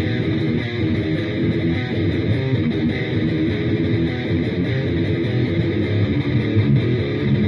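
Guitar playing a riff continuously, with dense, steady picked and strummed notes.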